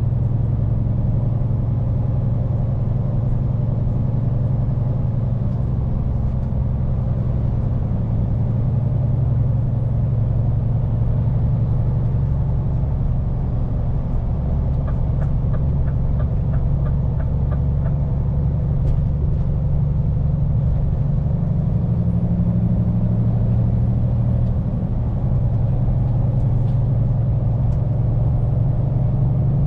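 Scania P410 truck's diesel engine running steadily under way, a low continuous drone with road noise. About halfway through comes a short run of light, evenly spaced ticks.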